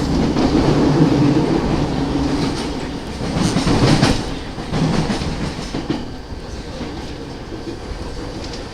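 Running noise of an E217 series electric train heard from inside a motor car, with rumble and rattles of wheels over track, dying down over the last few seconds as the train slows.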